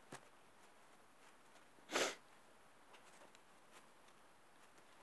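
A man's single short, sharp breath about two seconds in, part of a sneeze build-up; otherwise quiet.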